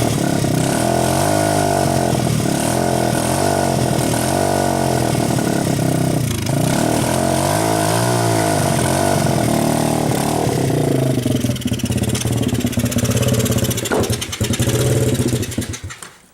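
Dirt bike engine running, its pitch wavering up and down, then falling from about ten seconds in; the engine stops near the end.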